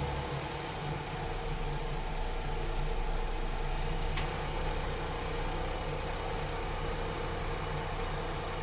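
Car engine idling steadily, with a single sharp click about four seconds in.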